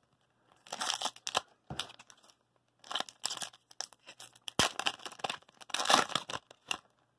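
Wrapper of a 2019-20 Tim Hortons hockey card pack torn open and crinkled by hand, in a series of short rips and crackles with one sharp snap about halfway through.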